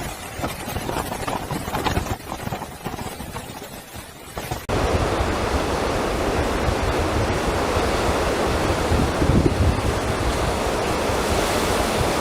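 Typhoon-driven storm surf and wind. About five seconds in it cuts abruptly to a louder, steady roar of wind and rushing water, with wind buffeting the microphone.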